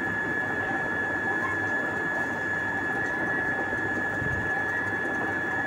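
Steady background hum with a constant thin high-pitched whine, unchanging throughout.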